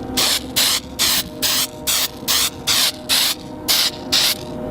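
Aerosol can of 3M contact spray adhesive being sprayed onto foam insulation in short hissing bursts, about three a second.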